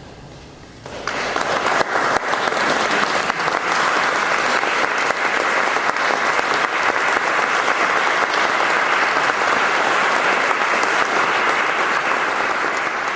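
Concert audience applauding, breaking out suddenly about a second in and going on steadily as dense clapping at the end of the performance.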